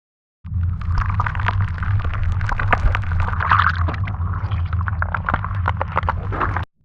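Edited-in sound effect: a steady low rumble with dense, irregular crackles and pops over it. It starts suddenly about half a second in and cuts off abruptly near the end.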